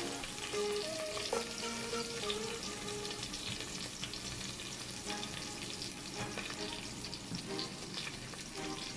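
Ginger and garlic sizzling in a little oil in a rice cooker's inner pot: a steady light crackle of frying.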